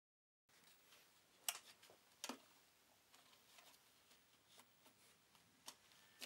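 Faint clicks and knocks of switches and knobs being worked on a Norman power pack, over a low hiss. The sound starts after half a second of dead silence, and the sharpest clicks come about one and a half and two and a quarter seconds in and again near the end.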